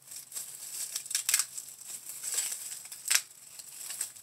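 Aluminium foil crinkling in irregular bursts as gloved hands unwrap it, with loose disposable plastic gloves rustling along with it; the sharpest crackles come about a second in, just past two seconds and at three seconds.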